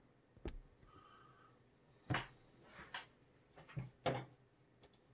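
A handful of soft knocks and clicks from handling the camera and its small tripod over quiet room tone. The loudest come about two and four seconds in.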